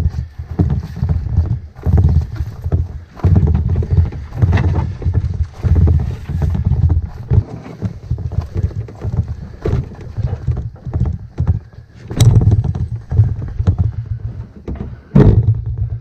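Canoe carried overhead on a portage, the hull jostling and thudding in uneven low pulses as it is walked along. A sharp knock comes late on and a heavy thump near the end.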